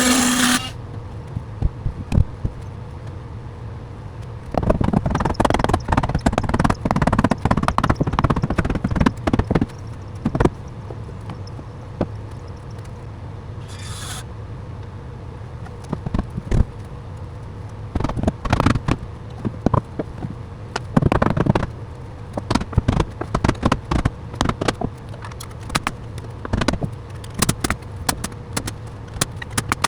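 Scattered knocks, clicks and scraping of hands-on carpentry work with wood and tools, over a steady low hum. A few longer stretches of scraping stand out, the first about five seconds in.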